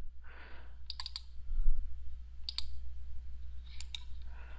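Computer mouse buttons clicking: a quick double click about a second in, a single click, then another quick pair near the end.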